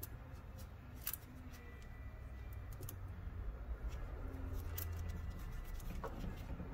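Faint clicks and light rattles as small wire ring terminals and nuts are handled and fitted onto an alternator's terminal studs by gloved fingers, over a steady low hum.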